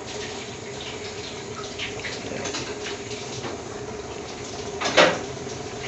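Gas-fired tandoor burning with a steady rushing hiss and a low hum, with a few faint clicks. About five seconds in there is one short, sharp knock, the loudest sound.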